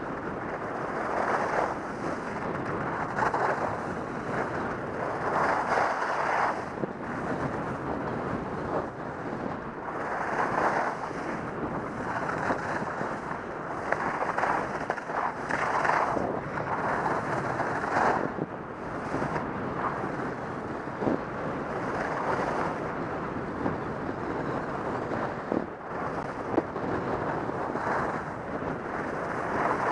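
Wind rushing over a helmet-mounted camera's microphone during a fast ski run, mixed with the scraping hiss of Head Kore 99 skis on hard-packed snow. The sound swells every couple of seconds as the skis carve each turn.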